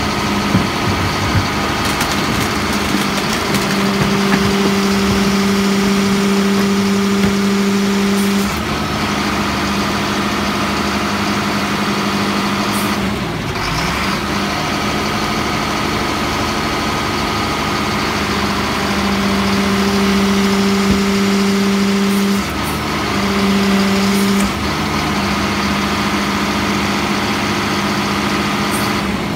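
Freightliner garbage truck's diesel engine idling, stepping up to a louder, higher steady speed for two stretches, about four seconds in and again past the middle, as the refuse body's hydraulics run. A steady higher whine runs alongside.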